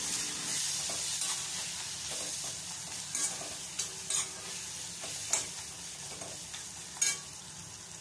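Onions, tomato and ground spices sizzling in hot oil in a pan while a metal spoon stirs and scrapes them, with a few sharper scrapes against the pan.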